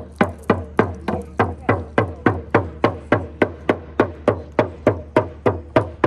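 Frame drum struck with a beater in a fast, steady beat of about three strokes a second, each stroke ringing briefly, played as a drum cleansing.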